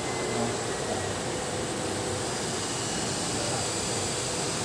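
Steady rushing noise with a faint, even hum underneath, holding one level throughout.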